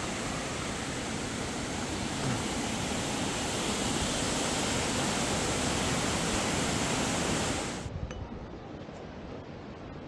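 Waterfall rushing as a steady, even roar that grows slightly louder, then cuts off abruptly about eight seconds in. A much quieter stretch with a few faint clicks follows.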